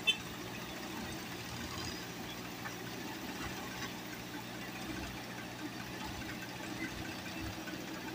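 JCB 3DX backhoe loader's four-cylinder diesel engine running steadily as the front bucket pushes soil, with one brief click right at the start.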